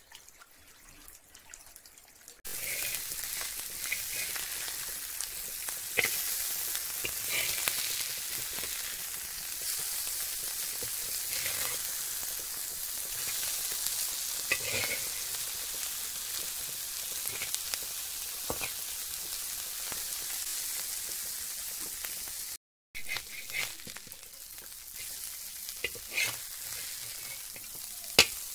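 Briefly, shallow water trickles over a sandy bed. Then tiny river fish (chuna machha) and sliced onions sizzle steadily as they fry in hot oil, with scattered clicks and scrapes of a metal spatula stirring them against the pan. The sizzle drops off and comes back quieter with a cut about three-quarters of the way through.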